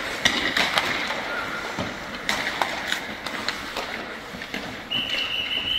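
Ice hockey practice in an indoor rink: sticks clacking on pucks and ice and skates scraping, giving a run of sharp knocks that echo in the arena. A brief high steady tone comes in near the end.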